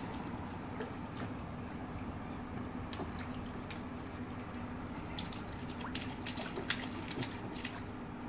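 Pool water lapping and splashing gently as swimmers move through it, with scattered sharp drips and small splashes, over a faint steady hum.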